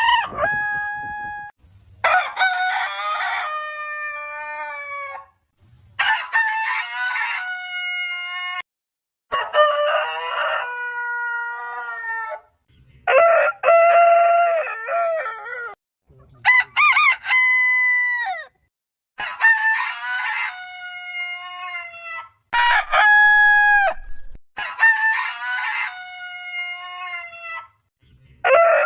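Roosters crowing: about nine separate long crows in a row, each lasting two to three seconds, with a held note that drops away at the end, cut apart by brief silences.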